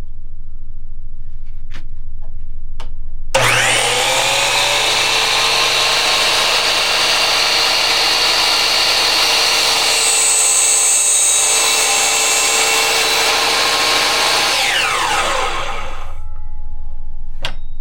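A few light clicks, then a Hercules miter saw switched on about three seconds in, its motor spinning up with a rising whine and running steadily. Its blade cuts through a scrap board around the middle, and the saw winds down with a falling whine near the end.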